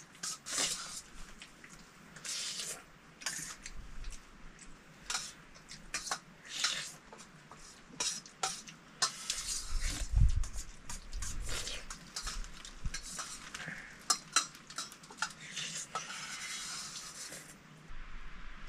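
Spoons and metal dishes clinking and scraping in irregular clicks as soup noodles are eaten, with one dull thump about ten seconds in.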